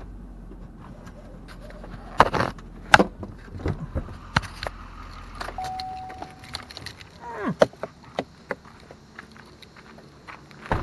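Clicks, knocks and rattles of handling inside a parked pickup truck cab and climbing out, with keys jangling. The engine's low hum stops about halfway through, a single short steady tone sounds just after, and more knocks follow as the door opens.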